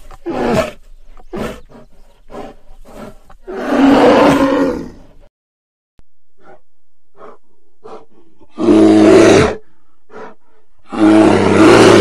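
Bear growling and roaring: a run of short grunts, then three long, loud roars about four, nine and eleven seconds in, each lasting about a second.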